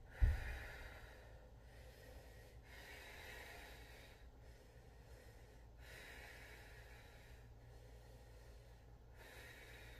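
A woman breathing slowly and audibly while holding a core-strength yoga pose (boat pose), a soft breath in or out about every one and a half seconds. A low thump just after the start, as she moves on the mat.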